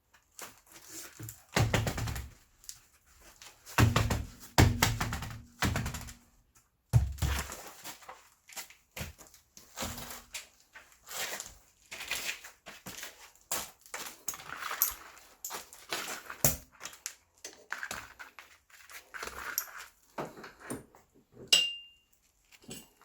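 Irregular knocks, thuds and scraping sounds in quick, uneven succession, with a short metallic ring near the end.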